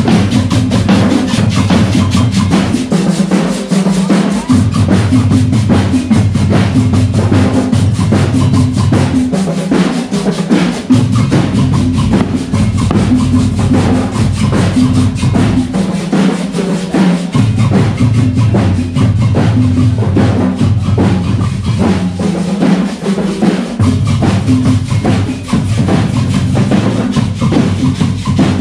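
School marching band playing a march: snare and bass drums keep a dense, steady beat over a low bass line that changes note every second or two.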